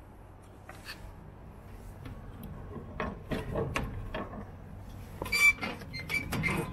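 Vending machine take-out slot being opened and a canned coffee pulled out. A series of clacks and knocks from the hinged clear plastic flap and the can knocking in the tray, loudest about five and a half seconds in.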